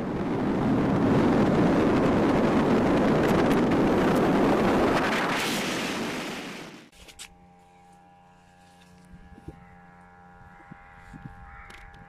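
Wind rushing over the microphone of a car-mounted camera, with road noise, as the car drives at speed; it fades out about two thirds of the way through. After that, only a faint steady hum with a few soft clicks.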